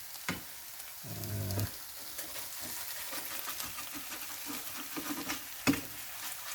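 Food sizzling in a hot skillet of bacon grease, a steady crackling hiss, with two sharp clicks of a metal utensil against the pan, the louder one near the end.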